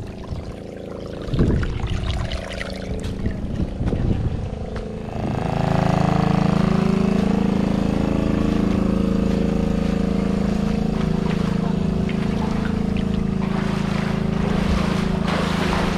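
Motor-driven water pump running steadily, draining the stream. Its drone grows much louder about five seconds in.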